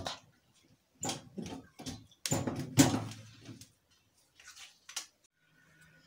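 A metal spoon pressing and scraping turnip-and-honey pulp in a plastic tea strainer set on a glass, giving short clicks and knocks in a few separate clusters, the loudest about three seconds in.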